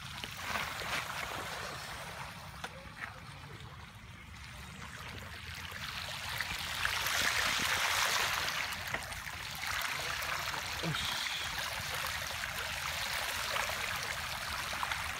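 Bicycle tyres rolling and splashing through shallow floodwater on a trail, a steady rushing spray that swells loudest about halfway through.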